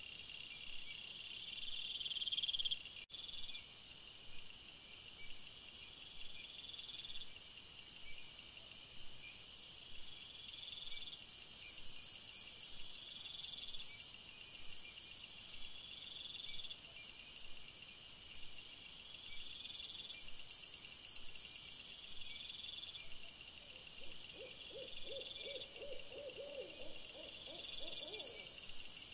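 Night insects chirping and trilling steadily, a high, evenly repeating chorus that shifts abruptly a few times. Near the end comes a short run of quick, lower-pitched pulses.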